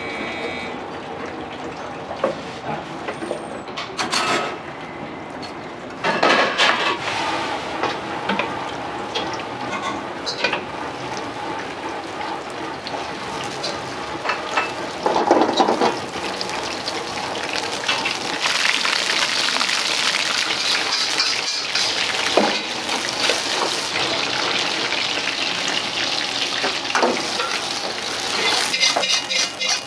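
Wok station in a restaurant kitchen: a steady background hiss with scattered knocks and clinks of knife and utensils, then, from about two-thirds of the way through, a loud, steady sizzle of food frying in hot oil in a wok, with ladle clanks near the end.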